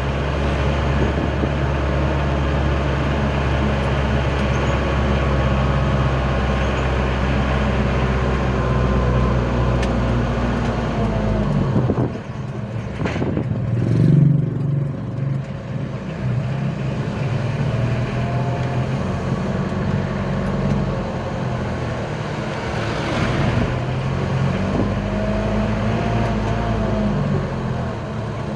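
Old Mitsubishi L300 pickup's engine running while it carries a heavy overload, heard from inside the cab. About twelve seconds in, the deep drone drops away and the engine note changes. A brief louder moment follows a couple of seconds later.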